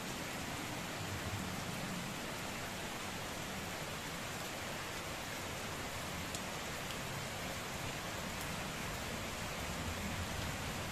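Heavy rain falling steadily on wet ground, puddles and leaves, an even hiss with a few separate drop ticks.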